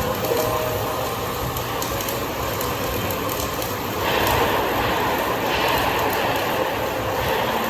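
Steady workshop noise; about four seconds in, a flux-cored welding arc starts and runs with a steady hiss.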